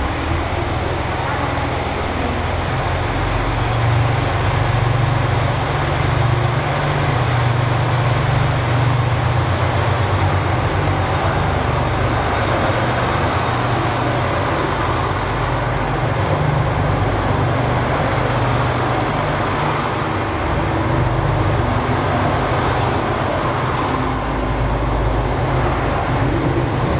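JR Shikoku 2000 series diesel railcars pulling out and passing, their diesel engines running with a steady low drone that eases off near the end as the train moves away.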